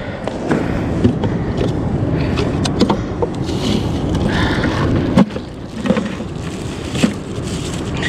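Steady low rumble of surf and wind on the microphone, with a handful of sharp clicks and knocks from the crab snare and gear being handled.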